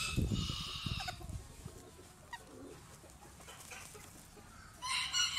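Chicken calling: a drawn-out call at the start and another near the end, with a quieter stretch between. A soft, scratchy low rustle runs under the first call.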